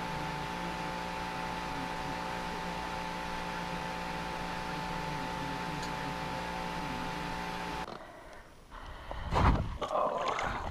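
A steady machine hum with several steady tones, like a fan or heater running in a small room. It cuts off about eight seconds in and gives way to loud, irregular wind buffeting on the microphone.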